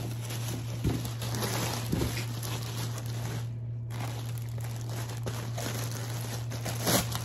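Clear plastic bag wrapping a leather tote crinkling and rustling as it is handled and pulled from the box, with a louder crackle near the end. A steady low hum runs underneath.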